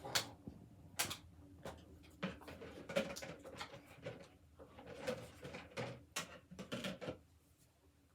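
Irregular knocks and clicks, about a dozen over several seconds, with softer rustling between them, like objects being handled and set down.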